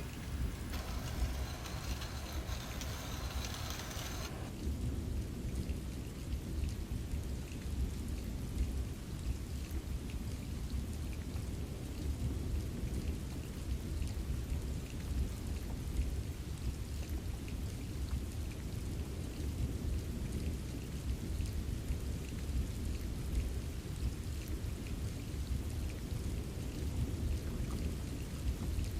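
Steady rain falling, with scattered drops ticking on a surface over a continuous low rumble. A brighter hiss sits on top for the first few seconds.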